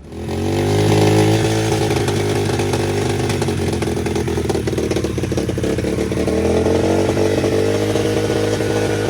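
SSR 125cc dirt bike's single-cylinder four-stroke engine running on its newly installed carburetor, after the old carb had left it unable to start. The engine comes in suddenly and runs steadily, its revs sagging a little midway and then rising again.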